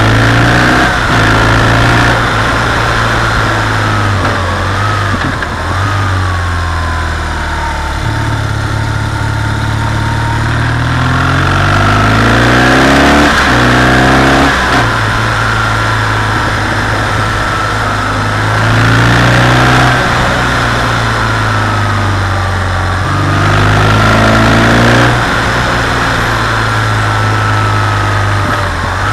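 BMW R 1200 GS boxer-twin engine running as the motorcycle climbs a twisty mountain road, its pitch rising and falling as the rider gets on and off the throttle through the bends. It pulls harder and louder three times, about twelve, eighteen and twenty-three seconds in.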